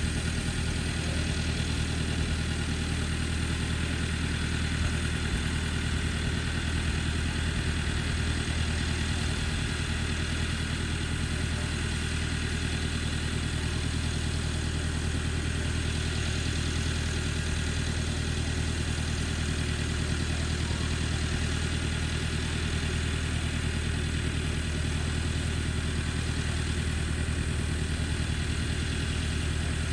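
Massey Ferguson tractor engine running steadily at low revs, an even unchanging hum.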